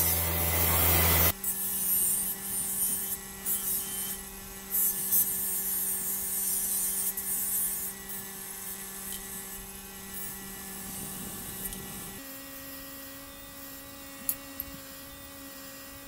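A small electric tool motor running with a steady hum while something rubs and scrapes against metal in irregular bursts; the motor's pitch drops about twelve seconds in.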